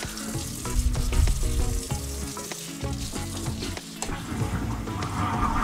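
Curry sauce bubbling at a boil in a wok, a steady sizzling hiss with small popping ticks from the liquid reducing. Lo-fi background music with a low bass line plays alongside.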